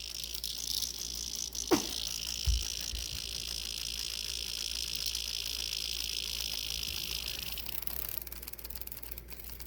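Cicada buzzing steadily, high-pitched, then fading out near the end. A brief falling sound comes just under two seconds in, followed by a couple of low thumps.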